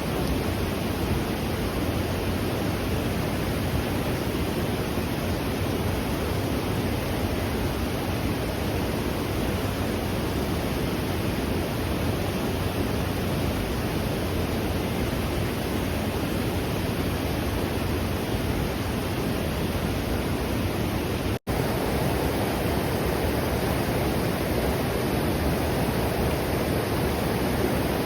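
Steady rushing of a fast-flowing river, an even noise with no breaks. The sound cuts out for a split second about three quarters of the way through, then resumes unchanged.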